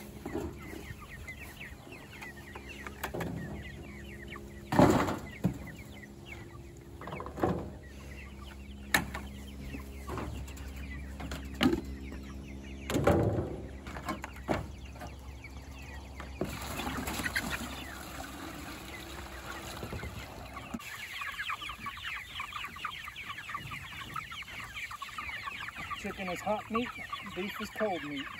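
A flock of white meat chickens (broilers) in a chicken tractor clucking and peeping, with several sharp knocks and clatters of plastic buckets being handled. In the last several seconds the birds' chatter turns into a dense, rapid run of short high peeps.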